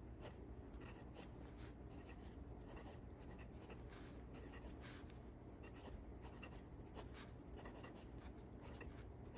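Steel medium nib of a Ranga Salmon fountain pen scratching faintly across notebook paper as a word is handwritten. It is a run of short, irregular scratches, one for each pen stroke.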